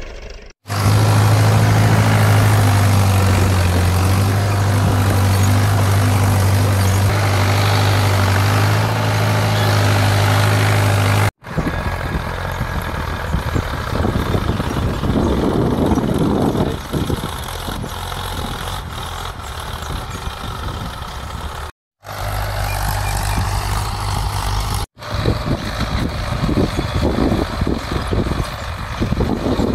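Mahindra Yuvo 475 DI tractor diesel engines running steadily while pulling cultivators through dry stubble. For the first third one engine is close and loud with a steady hum. After a cut about a third of the way in, the engines are quieter and mixed with a rushing noise.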